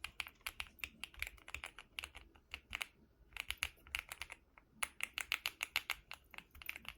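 Typing on an Akko MonsGeek M1 V5 full-aluminium, hot-swap mechanical keyboard: quick runs of key clicks, with a short pause about three seconds in, demonstrating its typing sound.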